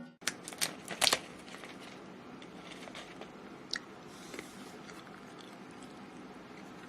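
A few sharp clicks and knocks in the first second, two fainter clicks a few seconds later, then a faint steady hiss of room tone.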